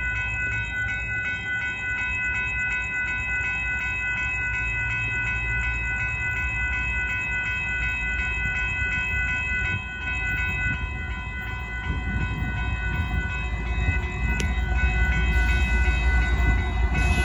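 Railroad grade-crossing warning bell ringing rapidly and steadily. Under it, the low rumble of an approaching Union Pacific freight train grows louder over the last few seconds.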